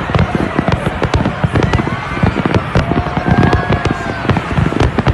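A large fireworks display: a dense, continuous run of rapid bangs and pops.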